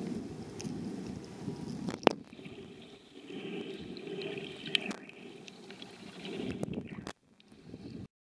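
Muffled underwater water noise picked up by a submerged camera: a low churning wash with a few sharp clicks, the loudest about two seconds in. The sound drops away about seven seconds in and cuts off to silence about a second later.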